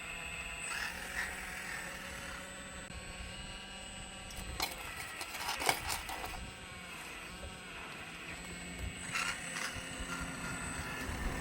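Radio-controlled scale model excavator working: its motors give a wavering whine that rises and falls in pitch over a steady low hum, with sharp clicks and knocks from the moving parts in the middle and again near the end.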